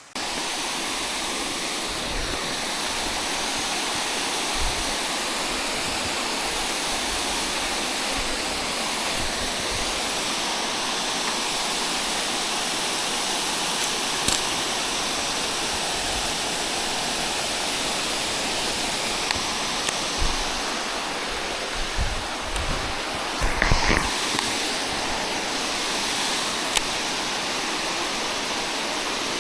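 Rushing river water, a steady loud rush like rapids or falling water. A few dull low knocks come about three-quarters of the way through.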